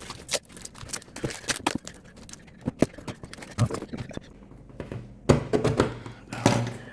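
Sped-up sound of a heavily wrapped package being cut and torn open: rapid rustling, crinkling and clicks of packaging, louder for the last second and a half or so.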